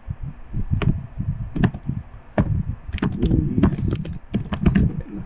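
Typing on a computer keyboard: irregular clicking keystrokes with low thumps underneath.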